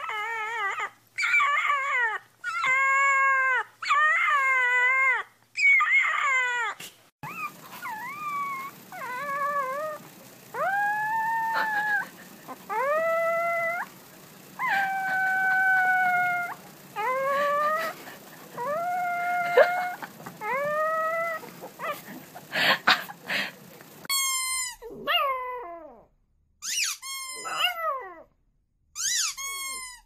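Puppies howling: a string of short, arching howls and whimpering yips, each under a second long, from several clips spliced together, with abrupt changes about 7 and 24 seconds in. The last calls fall in pitch.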